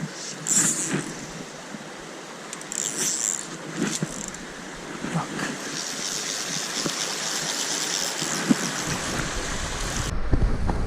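Rustling and scuffing of someone moving along the riverbank, over a steady wash of running water. Wind buffets the microphone near the end.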